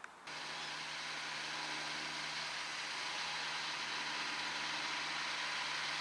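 John Deere 6250R tractor's six-cylinder diesel engine working under load while pulling a plough: a steady engine hum under a hissing wash of noise. It cuts in abruptly just after the start, then slowly grows louder as the tractor comes closer.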